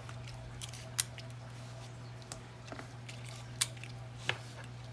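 Sticky tape being pulled, torn and pressed down onto the corners of a fabric-covered cutting mat: several short sharp snaps spaced a second or so apart, over a steady low hum.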